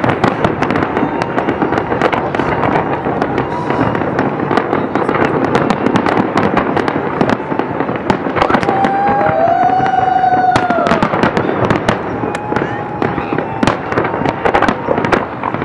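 Aerial fireworks going off in a dense barrage: many overlapping bangs and crackles, one after another with hardly a gap.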